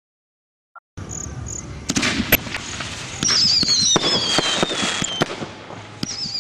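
A 16-shot aerial fireworks cake firing spinning 'twister' shots, starting about a second in: a hiss of burning sparks with sharp cracks, and from about three seconds in a high whistle that falls slowly in pitch, with a second one starting near the end.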